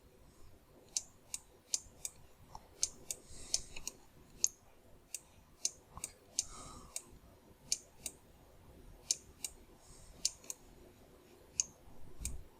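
Irregular sharp clicks of a computer mouse, about one to three a second, made while sculpting a model in Blender.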